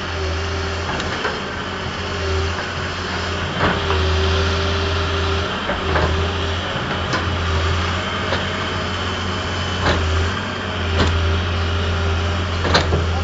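Construction machine's diesel engine running steadily with a constant low drone, with a few sharp knocks scattered through.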